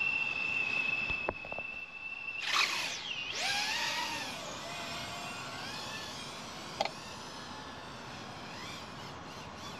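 A steady high beep stops about two and a half seconds in, then a small FPV quadcopter's motors spin up with a loud whine that rises and falls in pitch with the throttle and settles into a steadier whine in flight.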